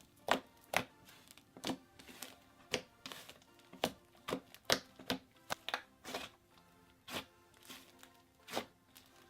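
Soft, creamy clay slime being squished and poked by hand, giving irregular sharp clicks and pops, about two a second.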